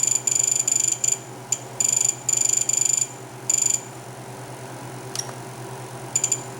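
RC radio transmitter beeping in rapid, high-pitched bursts while its servo endpoint setting is stepped up, stopping about four seconds in. A steady low hum runs underneath.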